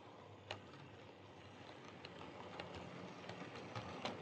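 OO gauge model goods train of wagons and vans rolling over model track behind a Heljan Class 17 diesel locomotive, a steady running rumble that grows a little louder. Sharp clicks come at irregular intervals as wheels cross rail joints and points.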